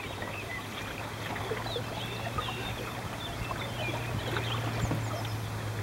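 Water gurgling and lapping against the hull of an AQU@MUSE sailing canoe under sail, with a steady low hum underneath.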